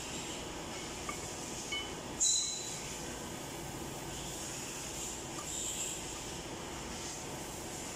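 Steady workshop hiss with a few light metallic clicks from the air dryer housing being worked by hand in a vise, and one sharper clink with a brief ring about two seconds in.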